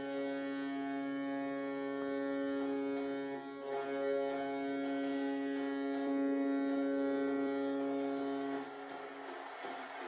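Goal horn blowing one long, steady multi-tone blast, with a brief dip about three and a half seconds in; it cuts off near the end.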